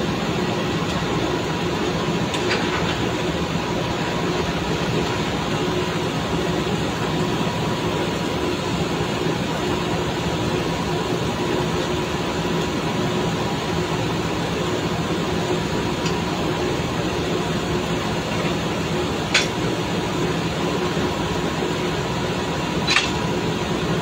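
Steady, loud drone of drilling rig machinery on the rig floor while tripping pipe, with a constant hum in it. Two short sharp metal clanks come near the end, a few seconds apart.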